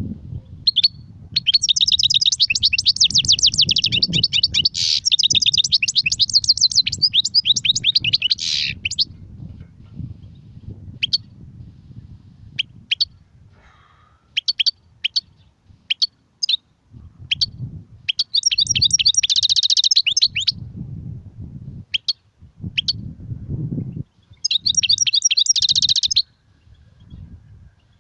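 European goldfinch singing: long runs of fast, high twittering, then scattered single notes, then shorter bursts of song again after the middle.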